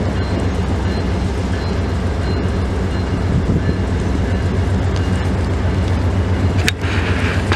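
Diesel locomotive of an Amtrak Downeaster passenger train running with a steady low rumble. Near the end there is a sharp click followed by a brief hiss.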